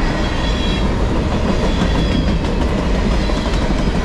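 Freight train's container flatcars rolling past close by: a steady heavy rumble with the clickety-clack of steel wheels over the rails.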